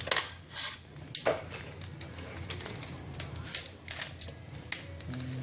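Irregular clicking and clattering from a computer power cord being handled and uncoiled, its plastic plugs and cable knocking against each other and the table.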